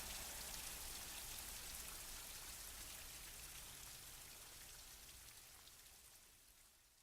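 Rain falling, an even hiss of drops, fading out steadily toward silence near the end.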